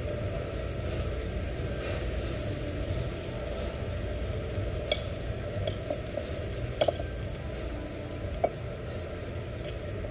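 Meat sizzling on a tabletop yakiniku grill over a steady low hum, with a few sharp clicks of utensils on the grill grate and dishes, the loudest about seven seconds in.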